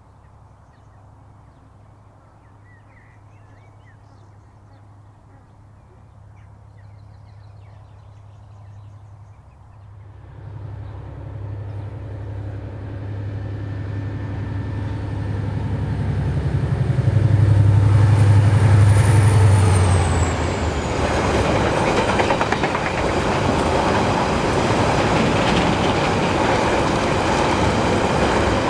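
GM 071 class diesel locomotive running under load with a low, steady engine drone, faint at first and growing louder as it approaches, loudest as it passes. After that the laden wagons of steel rails roll by with a loud, continuous wheel rumble and clatter.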